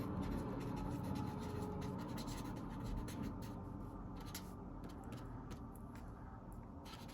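Faint writing on paper: a pen scratching in short, uneven strokes.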